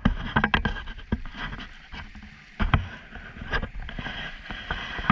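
Pond water rushing and splashing out through a freshly cut breach in an earthen dam, the sign that the pond is draining, with irregular sharp splashes over a steady rush.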